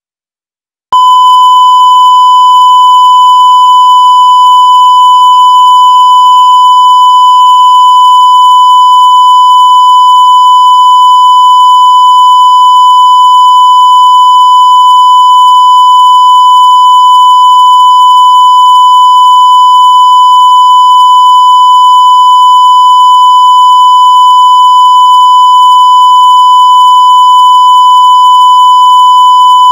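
Broadcast line-up test tone: one steady, unchanging, very loud beep that cuts in abruptly about a second in after silence, sent while the live feed is off air.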